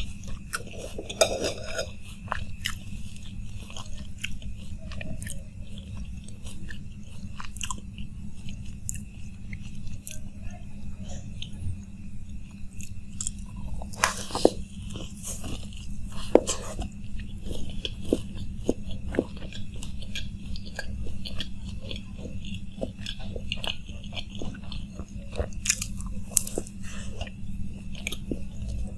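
A person chewing and crunching crisp fried street snacks, puri shells and samosa, with many sharp crunches and the loudest bites about halfway through.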